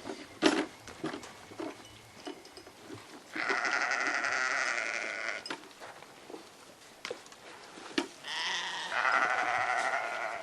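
Two long bleats from farm livestock, each lasting about two seconds: the first about three and a half seconds in, the second near the end, with a few short knocks in between.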